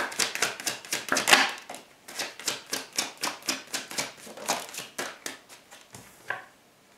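A deck of tarot cards being shuffled in the hands: a rapid run of card clicks, several a second, that stops about six seconds in.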